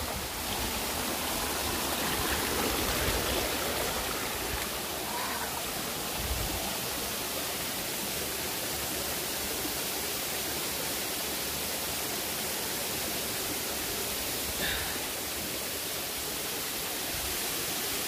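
Steady rush of a 50 to 60 metre waterfall, with its stream running over boulders close by.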